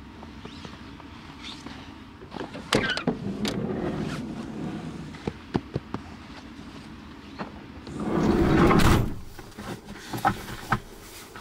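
A Renault Master van's front cab door being opened and climbed through: footsteps in snow and a coat rustling, sharp clicks of the door handle and latch, and a loud rush lasting about a second around eight seconds in, with two more latch clicks near the end.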